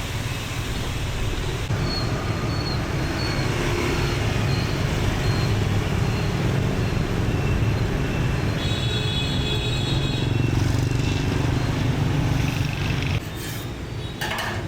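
Street traffic: vehicle engines running close by over a steady low rumble, with a brief high-pitched beeping tone about nine seconds in. The traffic noise drops off suddenly near the end.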